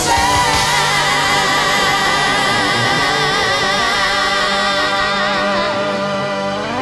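Cover band holding one long chord, with a sustained sung note wavering in vibrato over it. A rising swoop in pitch comes right at the end.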